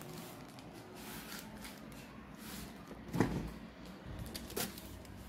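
Handling noise from a phone camera being carried and moved about, with faint rustling and a soft knock a little after three seconds in.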